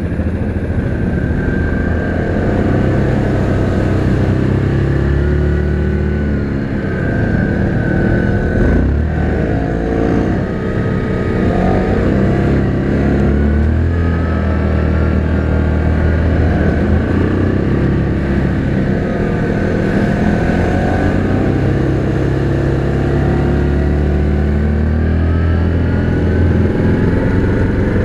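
Yamaha Grizzly 700 ATV engine running under way, its pitch rising and falling again and again as the throttle opens and eases off.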